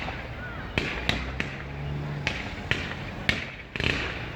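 Fireworks going off: about six sharp bangs at uneven intervals over a few seconds.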